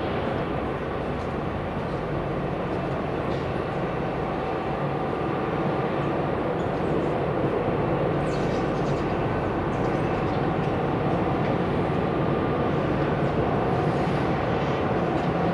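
LET L-410 Turbolet's twin turboprop engines running steadily on the ground just after start-up, a little louder from about six seconds in.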